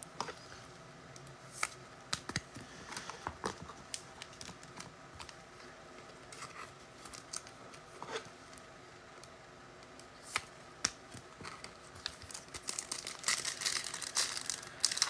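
Trading cards and foil pack wrappers being handled: scattered soft clicks and taps, with wrapper crinkling that gets busier and louder near the end.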